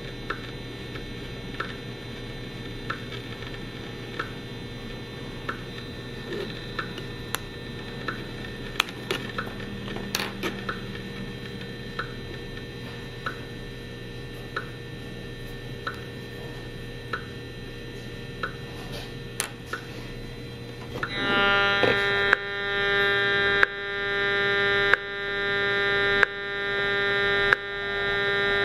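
An EMFields Acoustimeter RF meter's audio output turning radio pulses into sound. For about 21 s there are faint regular ticks, roughly one every three quarters of a second. Then a loud buzz with several pitches sets in, swelling up and cutting back about every second and a quarter, as the pulses max out the meter.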